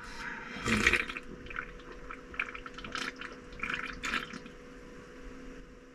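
A man drinking beer from a can in a string of gulps and swallows with the liquid sloshing in the can, the strongest about a second in.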